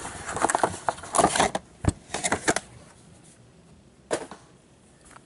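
Cardboard hobby box of trading cards being opened and handled by gloved hands: a run of rustles and clicks over the first two and a half seconds, and one more short knock about four seconds in.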